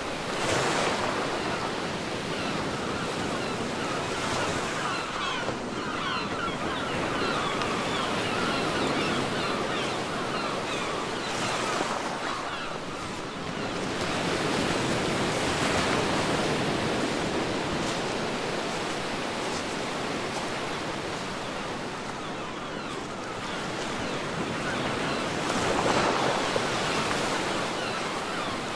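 Sea waves washing onto a beach: a continuous hiss of surf that swells and falls back as each wave breaks, loudest with the wave near the end.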